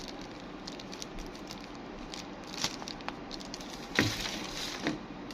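Small clicks and taps of a phone and small tools being handled on a workbench during repair, over a steady hiss. A louder click about four seconds in is followed by a short scraping rustle.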